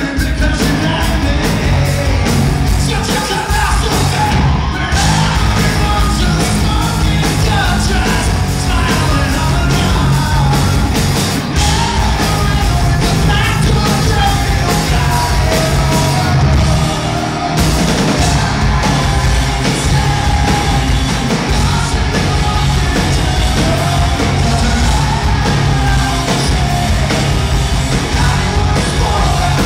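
Live rock band playing loudly: a male lead singer singing over electric guitar and bass guitar, with a steady beat.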